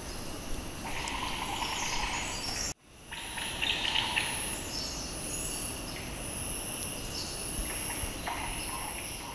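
Forest ambience: a steady high-pitched insect drone, pulsing in places, with scattered bird calls and chirps. The sound drops out for a moment about three seconds in, then resumes.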